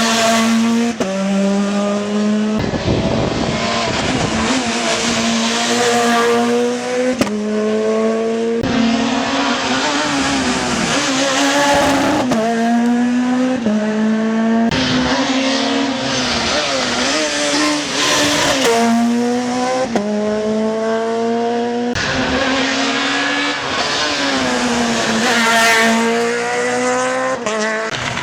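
Rally car engines at full throttle on a stage, the pitch climbing and dropping sharply again and again as they shift up through the gears, with some easing off and tyre squeal.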